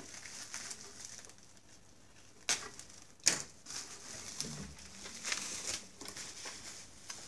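Plastic bubble wrap crinkling and rustling as hands unwrap a box from it, with two sharp clicks about two and a half and three seconds in.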